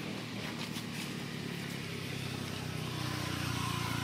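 A steady low engine hum, growing a little louder near the end.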